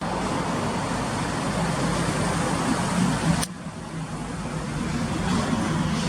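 Steady outdoor road traffic noise with a low engine hum; about three and a half seconds in it breaks off with a click and carries on quieter.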